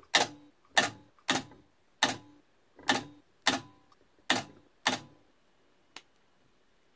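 Spot welder firing eight sharp snaps about half a second to a second apart as steel electrode pieces are welded onto tungsten wire, then one fainter click near the end.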